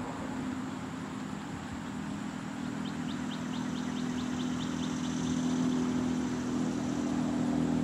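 Whelen WPS-2904 electronic outdoor warning siren sounding its wail tone during a routine test, a steady tone that grows slowly louder. A short run of fast, high ticks sounds about three seconds in.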